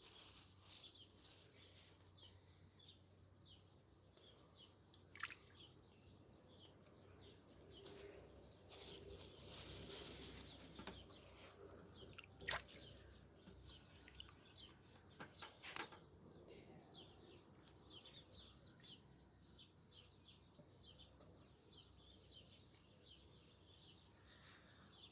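Near silence with faint, scattered bird chirps and a few sharp clicks; a brief soft rushing sound about ten seconds in.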